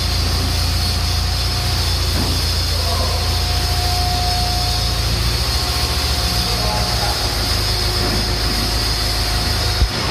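Diesel engine of a JCB telehandler running steadily as the machine manoeuvres, a low even rumble with a thin high whine that comes and goes.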